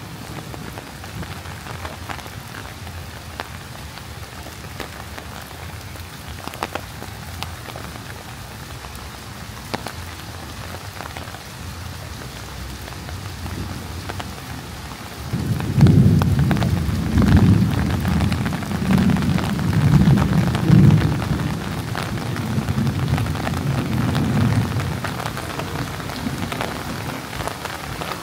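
Steady heavy rain falling on hard surfaces, with scattered sharp drop hits close by. About halfway through, a long low rumble of thunder rolls in and fades away over about ten seconds.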